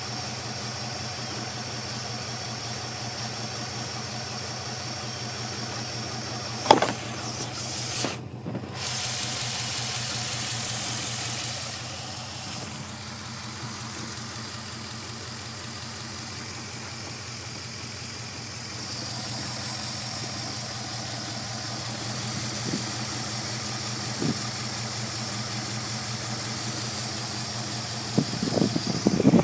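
5.7-litre Hemi V8 idling steadily but running rough. A single sharp knock about seven seconds in, and a few irregular thumps near the end.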